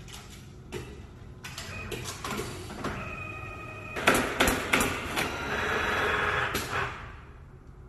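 Automatic canvas stretching and stapling machine at work: irregular clicks and knocks, then a quick run of loud sharp clacks about four seconds in and a steady mechanical whine for about a second and a half that stops near the end.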